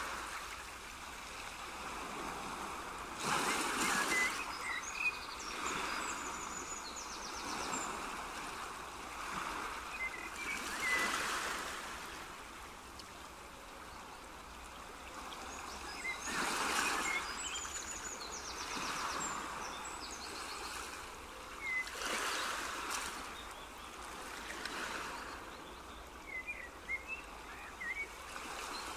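Water ambience, a rushing wash that swells about every six seconds, with scattered short high chirps.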